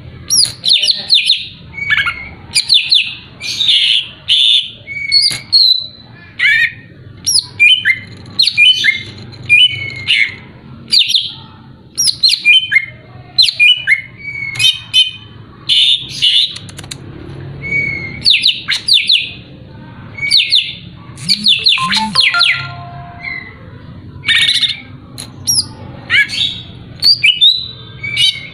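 Green leafbird (cucak ijo) singing a fast, varied string of sharp chirps and downward-sweeping whistles in short phrases with brief pauses, over a faint steady low hum. This is a lure song, played to rouse rival songbirds into singing.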